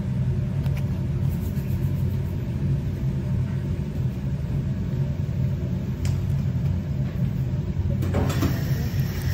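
Steady low machine hum, with a few faint clicks over it.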